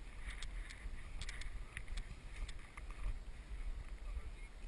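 Footsteps on loose scree: boots crunching and stones clicking together at an irregular pace, over a steady rumble of wind on the microphone.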